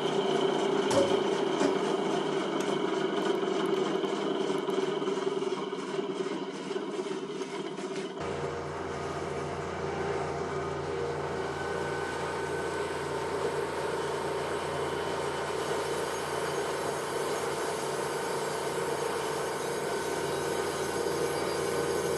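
Crankshaft grinding machine running steadily while a crankshaft's main journals are finished. About eight seconds in, the sound changes suddenly and a deeper hum sets in and carries on.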